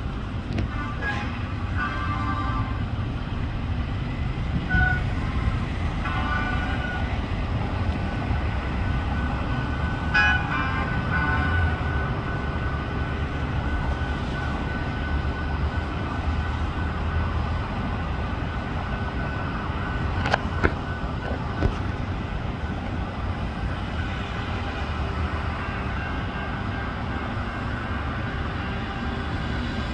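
A vehicle horn sounds in short blasts, three times in the first twelve seconds, over a steady low rumble of engine and traffic. Two sharp clanks come about twenty seconds in.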